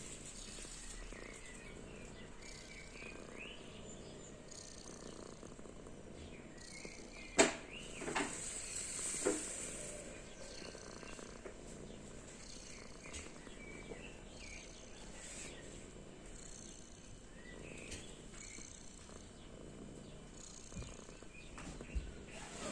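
A kitten purring steadily, the contented sound of a happy cat. Three sharp knocks cut in about seven to nine seconds in, the first the loudest.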